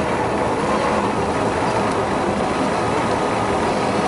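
1/10-scale RC4WD Gelande II Defender 90 crawler driving through loose gravel and sand, its WE8021 engine sound module playing a steady simulated engine note over the whine of the drivetrain.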